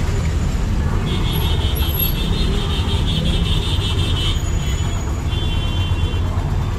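Road traffic: a vehicle's engine running with a steady low rumble. A high, rapidly pulsing tone runs from about a second in for some three seconds and comes back briefly near the end.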